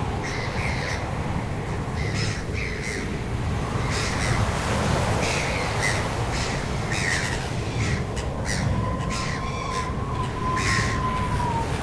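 Birds giving repeated short, harsh squawking calls, about a dozen, over a steady low rumble of surf or wind. Near the end a steady tone is held for about three seconds and dips as it stops.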